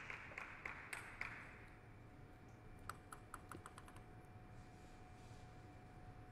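Faint clapping dies away in the first second or so. About three seconds in, a table tennis ball bounces on the table about eight times in quick succession, the bounces coming closer together.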